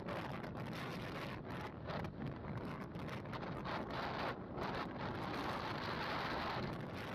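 Wind rushing and buffeting over the microphone of a motorcycle riding at road speed.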